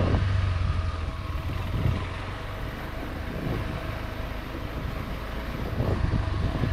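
Adventure motorcycle engine running at low trail speed, a steady low hum. It eases off for a few seconds in the middle and picks up again near the end.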